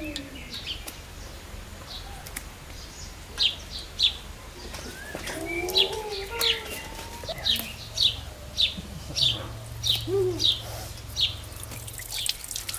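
Small birds chirping, a short high chirp repeated about twice a second through the middle and later part, with a few lower sliding calls. Tap water begins running near the end.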